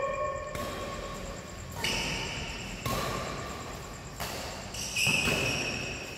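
Badminton doubles rally: sharp racket hits on the shuttlecock roughly a second apart, mixed with short high squeaks.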